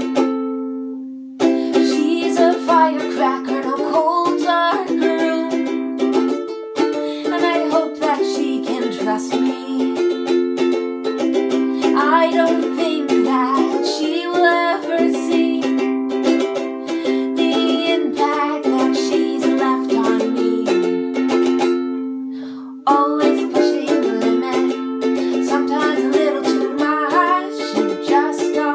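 Ukulele strummed in chords with a woman singing along, in a small room. The strumming breaks off briefly about a second in, and again about three-quarters through, where a chord is left to ring out and fade before the playing resumes.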